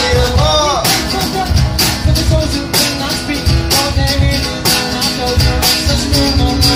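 Music with a steady percussive beat and a singing voice whose pitch glides, clearest about half a second in.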